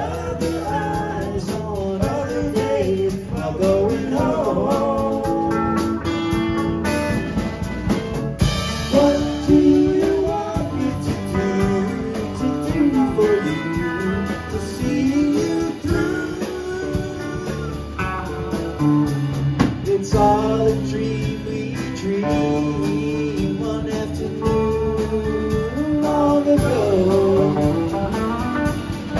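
Live rock band playing: electric guitars, bass, keyboards and drum kit, with a melody line gliding over a steady beat.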